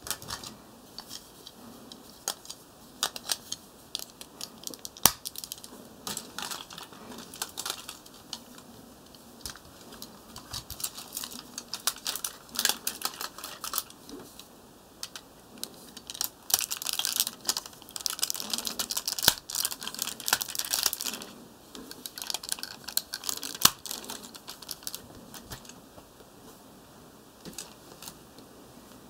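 Plastic parts of a Bandai DX Deka Wing Robo toy being handled and transformed: irregular clicks, snaps and rattles as pieces are moved and locked into place, with a denser spell of clattering a little past the middle.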